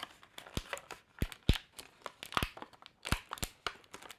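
Clear plastic blister insert crinkling and snapping in the hands while the tape holding a small accessory is peeled off, a run of irregular sharp clicks.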